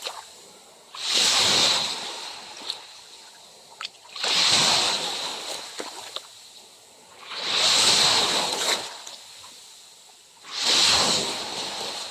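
Small ocean waves breaking on the beach, four times about three seconds apart; each comes in as a quick rush of surf and fades away.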